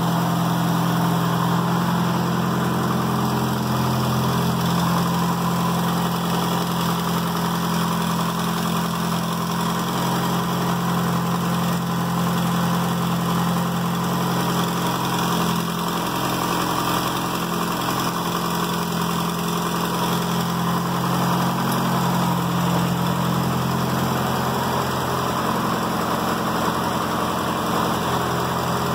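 Truck engine idling steadily, its exhaust let out through a long flexible corrugated hose clamped to the tailpipe and run up over the cab roof as a homemade exhaust stack.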